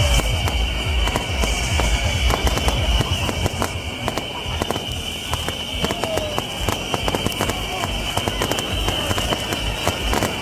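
Fireworks and firecrackers going off in a rapid, continuous crackle of many small bangs, heaviest near the start, over a steady high hiss.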